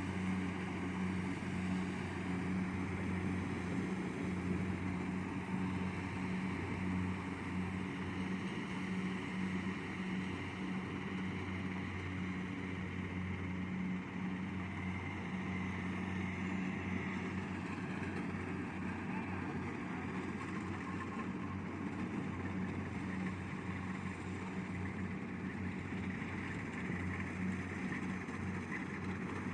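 Kubota DC70 Plus combine harvester's diesel engine running steadily under load while it cuts rice, with a constant low hum and the rush of the cutting and threshing machinery.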